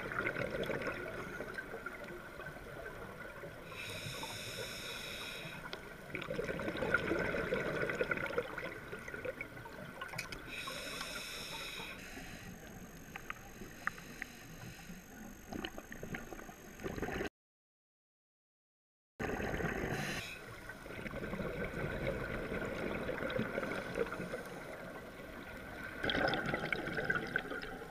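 Scuba diver's regulator breathing and exhaust bubbles, heard underwater, coming in repeated bursts over steady water noise; the sound cuts out completely for about two seconds past the middle.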